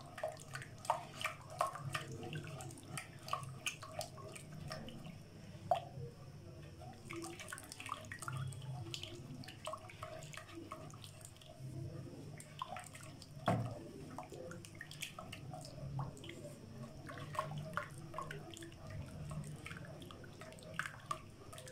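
Orange-juice and cornflour sauce bubbling and spattering in a nonstick wok over raised heat while a silicone spatula stirs it briskly. Irregular soft ticks and scrapes run over a faint low hum, with one louder click about halfway through.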